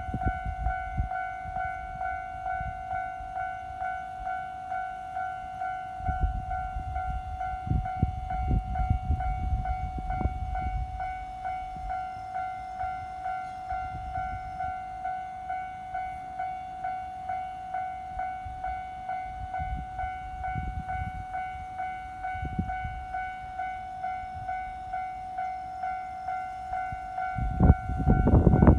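Japanese railway level-crossing alarm ringing, a steady electronic bell tone repeating in an even rhythm throughout. Low rumbling noise swells and fades twice in the middle and is loudest near the end.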